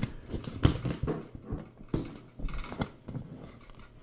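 Cardboard being handled and bent close to the microphone: rustling and scraping with irregular knocks.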